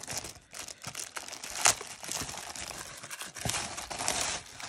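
Clear plastic wrapping crinkling and crackling as it is handled and pulled off an item, with irregular crackles throughout and one sharper crackle about a second and a half in.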